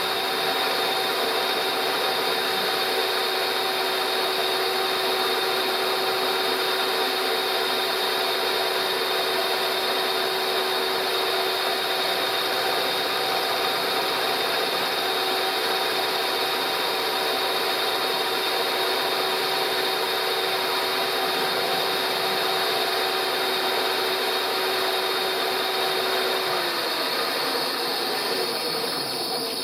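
Milling machine running with a slitting-saw type cutter machining the weld-built brake caliper mounting lug on a scooter drive casing: a steady motor and spindle hum with the cutter's rubbing, cutting noise. Near the end the machine is switched off and the hum drops in pitch and winds down.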